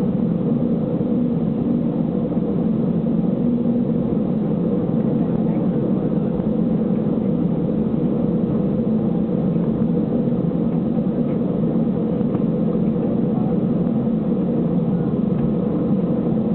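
Cabin noise inside an Airbus A320 taxiing with its jet engines at idle: a steady low hum and rush that does not change.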